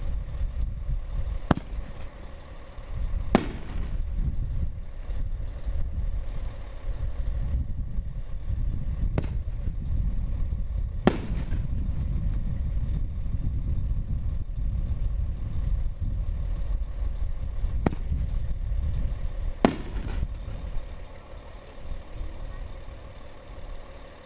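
Aerial firework shells bursting. There are six sharp bangs in three pairs, each pair about two seconds apart, over a steady low rumble. The bangs stop about four seconds before the end.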